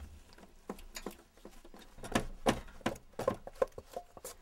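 Buckwheat flour and water being mixed quickly into soba dough in a stainless steel bowl: irregular short taps and scrapes against the bowl, several a second.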